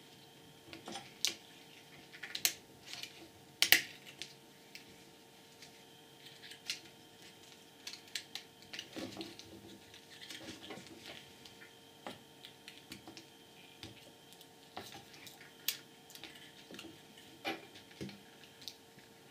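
Small irregular clicks and taps of plastic and metal as the parts of a disassembled Panasonic Toughbook CF-P1 PDA are handled, the sharpest click coming a little under four seconds in, over a faint steady hum.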